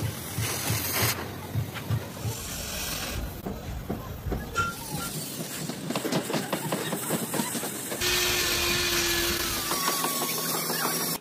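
Oxy-fuel cutting torch hissing as its flame cuts through a steel truck chassis beam. The hiss jumps abruptly in level several times, and scattered clicks and knocks sound through it.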